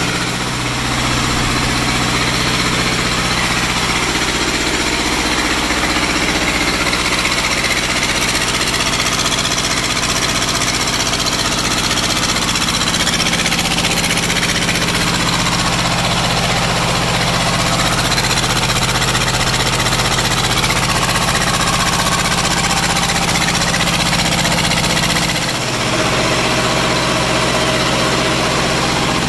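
Small diesel engine swapped into a Sears Suburban garden tractor, running steadily on one of its first runs after the swap. The sound dips briefly once, about 25 seconds in.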